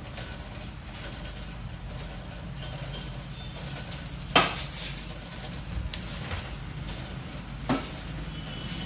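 Metal tools and wire being handled on a glass counter top. There are two sharp clacks, about four and a half seconds in and again near the end, with a few lighter knocks between them, over a steady low rumble.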